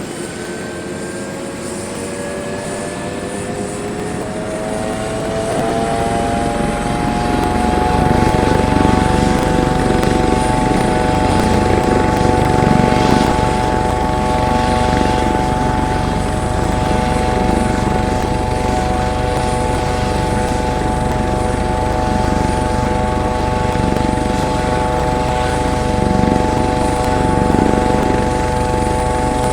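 Helicopter starting up: the engine whine climbs in pitch for the first few seconds and then settles to a steady note. The rotor's low, fast beating grows in over the whine about six seconds in and then runs at a steady speed.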